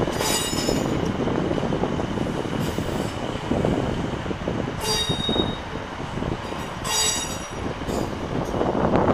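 Northern diesel multiple unit rolling slowly past under a steady low rumble of its wheels and engine. Its wheels give short, high-pitched squeals several times as it goes.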